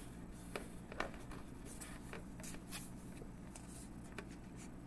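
Faint rustles and ticks of a sheet of paper being handled and shifted, over a steady low hum.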